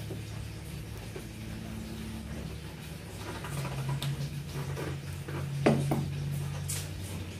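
Fried chicken drumstick being bitten into and chewed: small mouth and handling clicks, with a sharp crunch near six seconds in. A steady low hum runs underneath.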